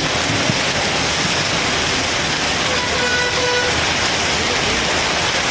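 Heavy rain pouring steadily on a road as cars drive through it. A vehicle horn sounds once for about a second near the middle.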